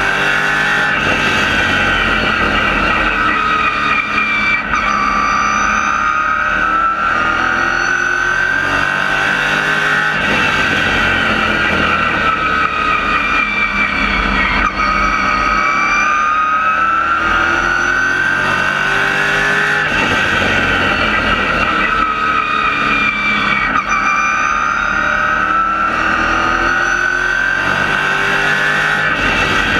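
Race car engine heard from inside the cockpit at racing speed, its pitch rising and falling over and over as the driver goes on and off the throttle around the track.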